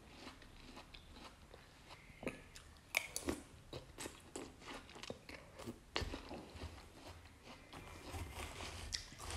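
A person biting into and chewing crisp watermelon, with scattered wet crunches.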